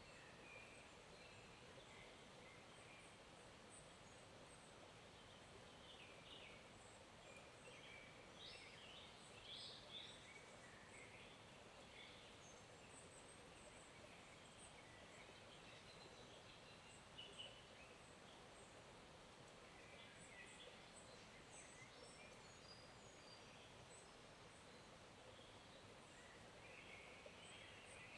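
Faint, steady rush of a small forest stream, with birds chirping in short scattered calls throughout, busiest about a third of the way in.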